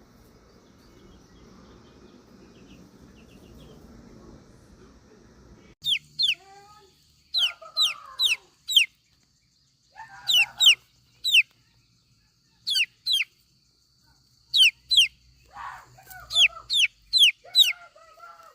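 Chickens calling: short, high, falling peeps, mostly in twos and threes, with a few lower clucks among them. They start about a third of the way in, after faint background noise.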